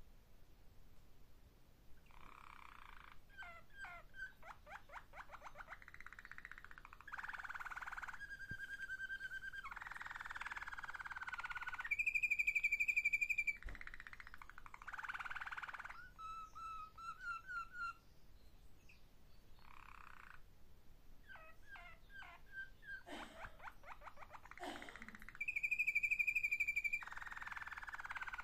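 Malinois (Waterslager) song canary singing a long, varied song: held whistled notes, fast rolling trills and bubbling notes. Its loudest part is a higher held note, about twelve seconds in and again near the end.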